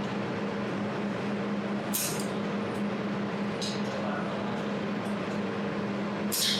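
200 W jewelry laser welding machine running with a steady hum, with three short, sharp high-pitched bursts, about two seconds in, near four seconds and at the end: the welder's laser pulses firing.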